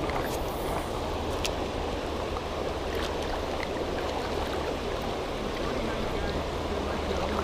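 Steady rush of flowing river water, even and unbroken, with a few faint ticks.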